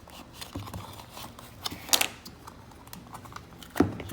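Plastic car door armrest being pried apart with a plastic pry tool: a run of small plastic clicks and creaks, with two sharp snaps, one about two seconds in and one near the end.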